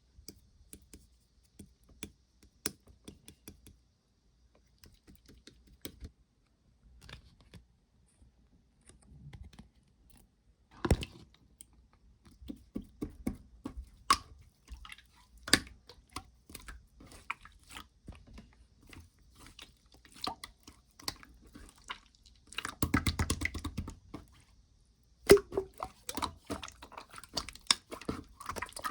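Slime being squeezed, poked and pressed by hand, giving sticky clicks and small pops, with a denser run of squelching about 23 seconds in.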